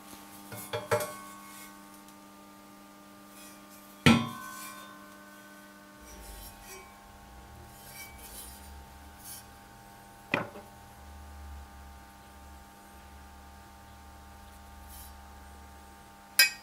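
Metal parts and tools being handled and set down: four sharp clinks and knocks, one about four seconds in ringing briefly, over a steady electrical hum.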